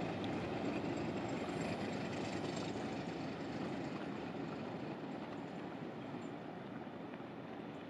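Steady rumble of a motor barge under way, slowly growing fainter.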